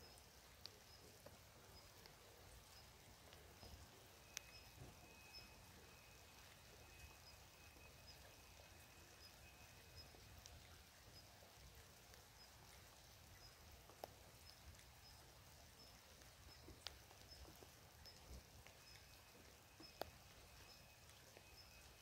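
Faint light rain in a forest: a soft even hiss with a few single drops landing close by. Under it a small creature gives a faint high peep about once a second, and a thin high steady tone runs for several seconds.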